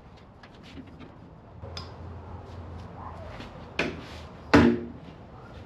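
Handling noise of small clicks, then two sharp knocks a little under a second apart, the second the loudest with a brief ring, like hard objects being set down or knocked together.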